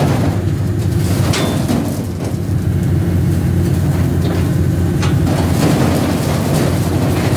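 Diesel engine of a Cat grapple machine running steadily, with a few knocks and scrapes as the grapple grips and shifts irrigation pipes on a trailer.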